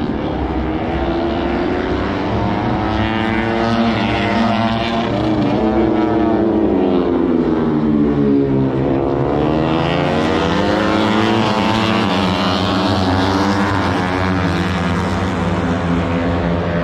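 Racing motorcycle engines at high revs on the track. Several engine notes slide down in pitch for several seconds, then climb again from about nine seconds in, as bikes brake and then accelerate.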